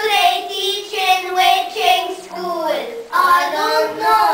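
A young child's high voice, drawn out in long sing-song stretches with short breaks between them.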